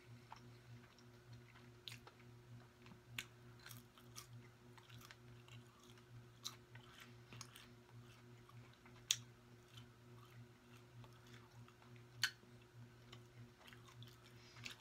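Faint chewing of a mouthful of food, with scattered sharp mouth clicks every second or two over a low steady hum.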